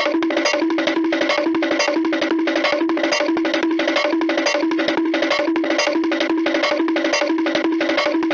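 Looped Hanna-Barbera-style cartoon sound effect: a short musical figure repeating in an even rhythm, a low note struck about twice a second with quick clicking notes in between.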